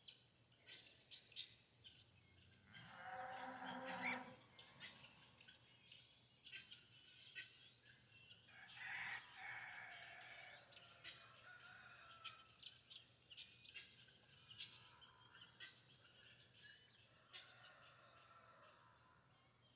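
Faint rooster crowing, several long calls: the loudest about three seconds in, another around nine seconds, and fainter ones near the end. Small birds chirp in short, frequent calls throughout.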